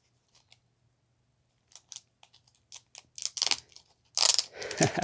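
Mail packaging being handled and opened by hand: a few light clicks, then louder crinkling and rustling about three seconds in and again near the end.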